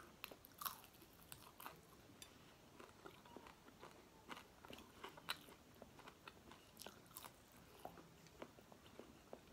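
Quiet, close chewing with small irregular crunches and clicks: a person eating crisp-fried galunggong (round scad) with rice.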